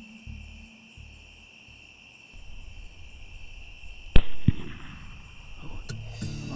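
A single rifle shot about four seconds in, with a short low thump a moment after it, over steady insect chirring. Music comes in near the end.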